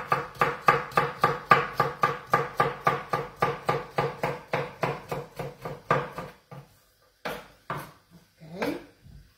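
Kitchen knife chopping an artichoke stem into small pieces on a wooden cutting board: quick, even strokes about five a second, thinning to a few separate knocks after about six seconds.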